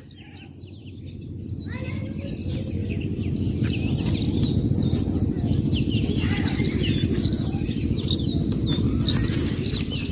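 Many small birds chirping in short, quick, rising and falling calls over a steady low rumble, growing louder over the first few seconds.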